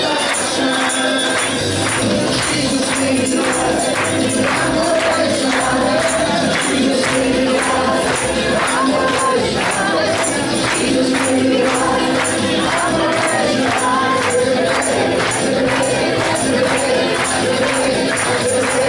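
A group of voices singing a song over instrumental backing, with a steady tambourine beat.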